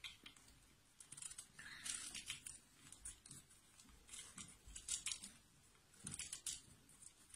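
Small knife blade shaving and scraping the cut face of a halved avocado pit, a few faint scraping strokes: evening the face flat and stripping off its shiny skin layer.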